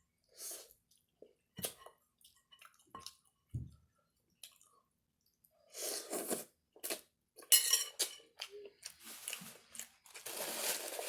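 Close-miked eating sounds: chewing and biting food, with scattered wet clicks and smacks, and louder crunchy, clattering bursts from about six seconds in.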